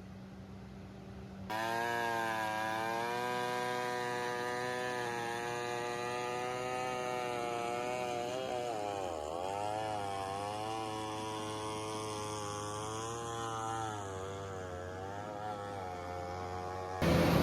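Diesel engine of heavy earth-moving machinery working under load, its pitch sagging and recovering, with a deep dip about nine seconds in. A quieter steady hum comes first, before the machine sound starts suddenly.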